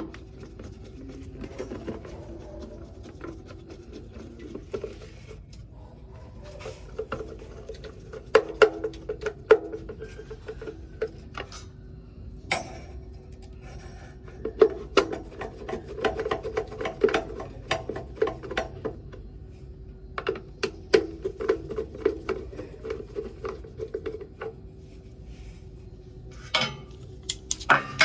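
Hand work with tools: rasping and rubbing with many irregular sharp clicks and taps, over a steady low hum.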